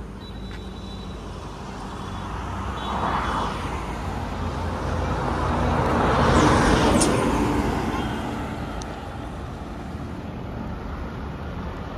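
Mahindra Scorpio SUV's diesel engine pulling away and driving past, growing louder to a peak about six seconds in, then fading as it moves off down the road, over a background of road traffic.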